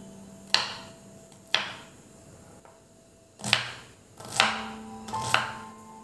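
Kitchen knife chopping green chilli and onion on a wooden cutting board: five separate knocks of the blade against the board, unevenly spaced, over soft background music.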